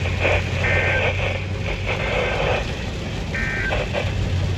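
A NOAA Weather Radio receiver sounding the EAS/SAME end-of-message data bursts: two short warbling digital chirps a few seconds apart, over a steady radio hiss and hum.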